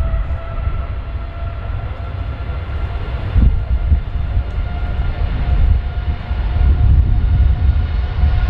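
Boeing 787-10's Rolls-Royce Trent 1000 jet engines at takeoff power: a heavy, steady rumble with a whining tone held over it.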